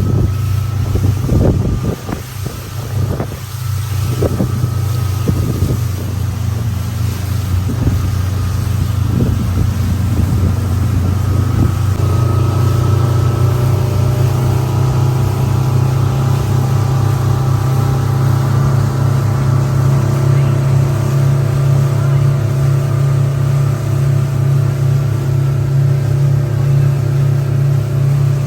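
Motorboat engine running steadily at a constant pitch, heard from on board, with a few short knocks or voices over it in the first dozen seconds.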